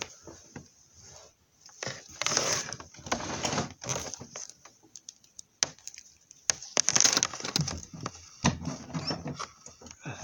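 Clothing rubbing close over a phone's microphone, with scattered clicks and knocks of things being handled on a desk. There are two longer stretches of rustling, about two seconds in and again about six and a half seconds in.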